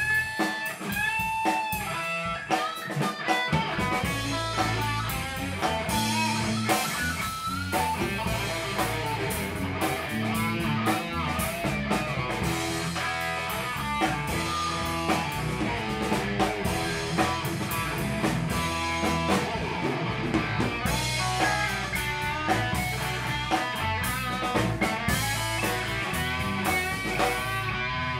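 Live rock band playing an instrumental passage: an electric guitar plays lead lines with bent notes over a drum kit and a steady low end.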